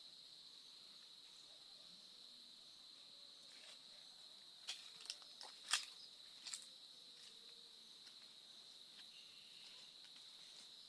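Faint, steady high-pitched drone of insects such as crickets. A handful of sharp clicks or snaps come a little before the middle of the stretch.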